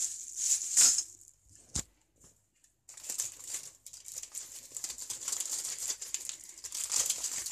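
Thin plastic bag crinkling as it is handled, with plastic headbands inside. A single sharp click comes a little under two seconds in, after a brief lull, and the crinkling resumes steadily from about three seconds on.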